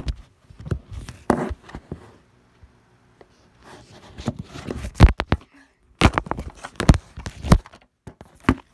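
Handling noise from a phone being picked up and carried in the hand: irregular knocks and rubs against the microphone, with a sharp knock right at the start. Footsteps land about once a second in the second half.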